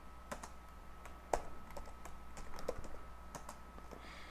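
Computer keyboard being typed on: irregular key clicks, one louder keystroke about a second in, over a faint steady high hum.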